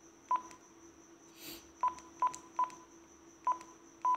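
ICOM IC-V88 handheld radio giving short key beeps as its keypad buttons are pressed while it is being programmed manually. There are six brief beeps, each with a click, at uneven intervals.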